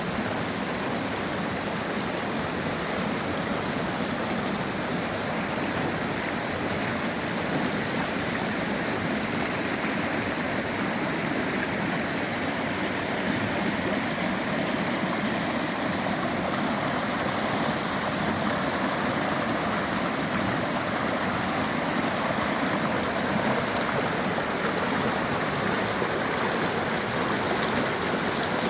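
Mountain river rushing over rocks: a steady, even rush of flowing water.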